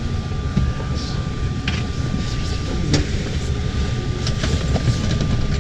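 Steady low rumble inside a crowded high-speed train carriage, with a thin steady whine above it and a few scattered knocks and clicks.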